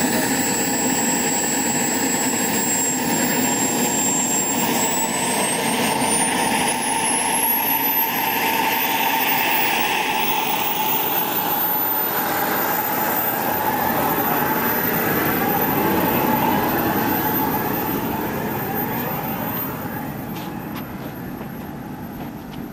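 KingTech K80E model jet turbine running on the ground in an RC Rafale: a high whine over a rushing exhaust. The whine climbs in pitch about four seconds in and then holds steady, and the sound grows fainter near the end as the jet taxis away.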